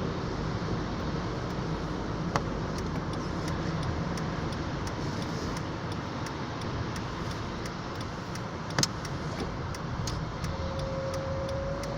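Steady road and engine noise from inside a moving car, with a sharp click about two seconds in and a louder one about nine seconds in. A short steady tone sounds near the end.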